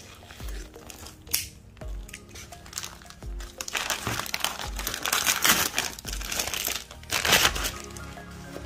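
Plastic vacuum-sealer bag crinkling and rustling as it is handled and pulled open and the formed Kydex holster is taken out. The crinkling grows louder after a few seconds, with its loudest bursts around the middle and again near the end, over background music with a steady beat.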